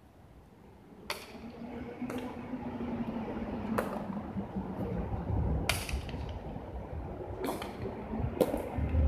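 Jai alai pelota striking the front wall and court and landing in the wicker cestas: about seven sharp cracks at uneven intervals of one to two seconds, over a low background rumble that swells about a second in.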